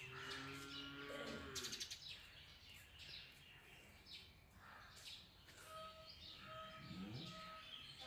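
Quiet outdoor birdsong: small birds chirping, with an African grey parrot's low, voice-like sounds in the first two seconds. Near the end a bird calls in even, repeated notes.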